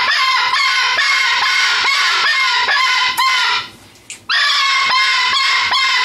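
Cockatoo screaming loudly in a rapid run of harsh calls, about two a second, breaking off briefly about three and a half seconds in and then starting again.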